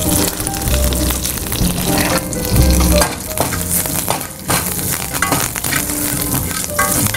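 Oil sizzling in a metal kadai as a tempering of chana dal, curry leaves and asafoetida fries. A spatula stirs through it, scraping against the pan.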